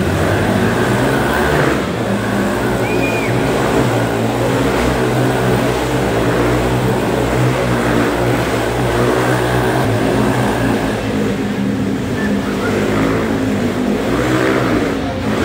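Dirt bike engines running steadily inside a steel mesh globe of death, the pitch rising and falling a little as the motorcycles circle.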